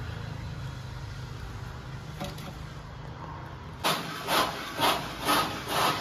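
A low steady hum, then from about four seconds in a run of rhythmic scraping strokes, about two a second: a steel plastering trowel scooping and scraping cement mortar in a metal mortar pan.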